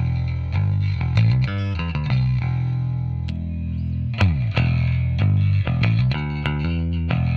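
Squier Bass VI six-string bass played clean out of the box on factory strings, through a modelled acoustic amp and Ampeg 4x10 cab: a run of plucked notes, with a falling slide in pitch about four seconds in.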